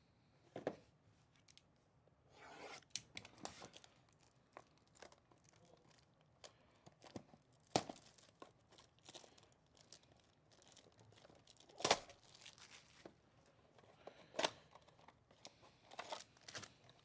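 Faint tearing and crinkling as the packaging and packs of a 2023 Panini Zenith football hobby box are ripped open by hand, in scattered short rasps and sharp ticks.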